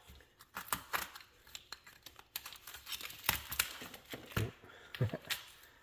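Packing tape and cardboard being torn and crinkled by hand: irregular rustling and tearing with sharp clicks, and a couple of louder knocks near the end.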